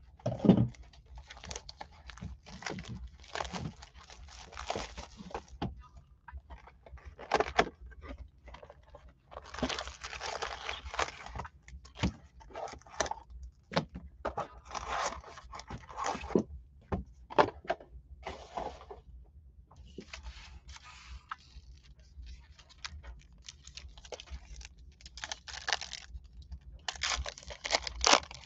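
Foil wrappers of 2020 Panini Mosaic football card packs crinkling and tearing as they are handled and ripped open. The sound comes in irregular bursts with a few sharp clicks.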